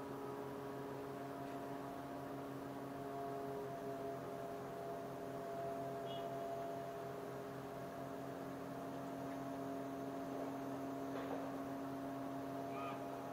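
Steady mechanical hum from the moored ferry's machinery running at the berth, a drone of several held tones at an even level.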